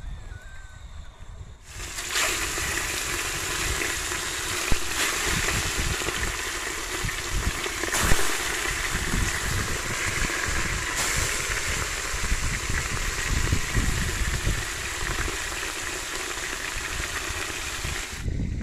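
Fish frying in hot oil in a pot: a loud, steady sizzle with a few sharp pops, starting about two seconds in and cutting off abruptly near the end.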